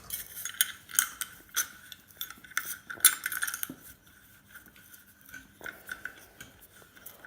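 Small metal parts of a dismantled light fitting clinking and rattling as they are handled, with sharp clinks for the first four seconds or so, then fewer and fainter ones.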